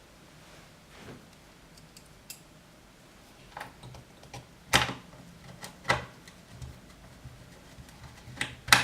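Scattered sharp clicks and light knocks, about half a dozen spread out, the loudest near the end: a screwdriver and small hard parts of an RC car being handled while a screw is fitted.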